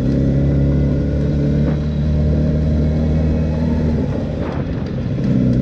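Suzuki Hayabusa's inline-four engine running through its stock exhaust at a steady low-speed cruise. It eases off about four seconds in and picks up again just before the end.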